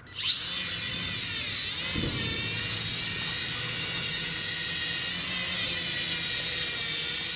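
Rage Stinger 240 quadcopter's motors and propellers spinning up with a rising whine about a quarter second in, then a steady high-pitched whine as the drone lifts off and hovers, with a brief dip in pitch around a second and a half in.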